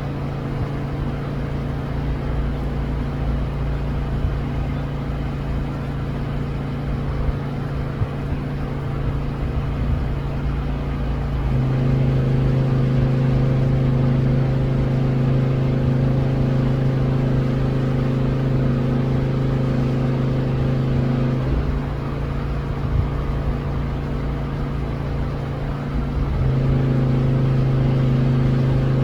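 A steady low machine hum at a fixed pitch, like an engine or motor running. It gets louder about 11 seconds in, falls back about 21 seconds in, and gets louder again near the end.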